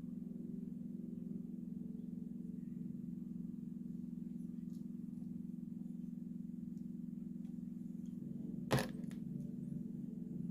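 A steady low hum with a single sharp click about nine seconds in, the loudest sound here.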